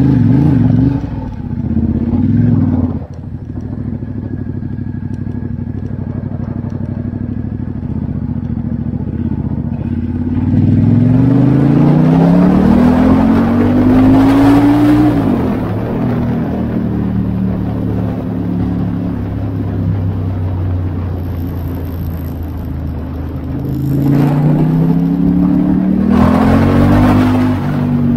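Ducati XDiavel S's 1262 cc V-twin running, with short revs at the start. Twice, about ten seconds in and again near the end, the engine note climbs steadily under acceleration and then drops back.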